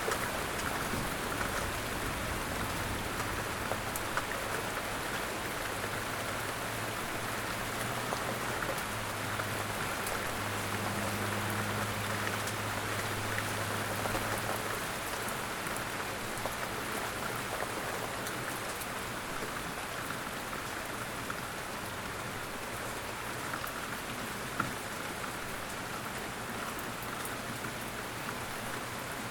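Steady rain falling, an even patter of drops on surfaces. A faint low steady hum sits underneath in the first half and fades out about halfway through.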